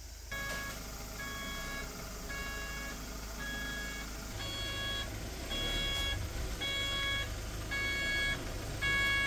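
Ambulance reversing alarm: a pitched beep repeating about once a second, about nine times, louder from about halfway through, over the low running of the vehicle's engine.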